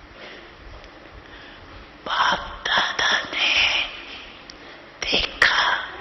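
A woman speaking softly and breathily into a microphone, in short phrases starting about two seconds in.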